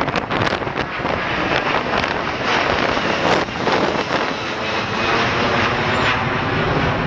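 Jet engine noise of a low-flying Airbus A330-200 twin-engine airliner passing overhead, a loud steady rush. Wind gusts on the microphone during the first few seconds.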